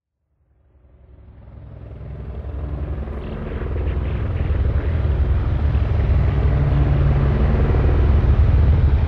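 Low, steady roar of a large waterfall, fading up from silence over the first few seconds and then holding loud.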